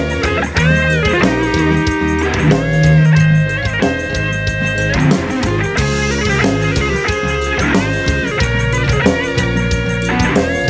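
Live rock dangdut band playing loud through a large outdoor PA system, heard from about 50 m away in the crowd: electric guitar over drum kit and heavy bass.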